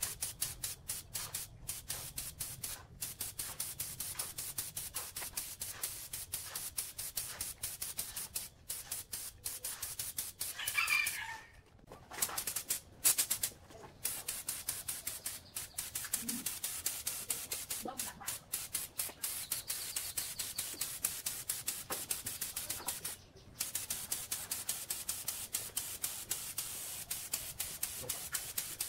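Air spray gun hissing as it sprays paint onto a compressor tank, the hiss cutting in and out in quick pulses. A rooster crows once, about eleven seconds in.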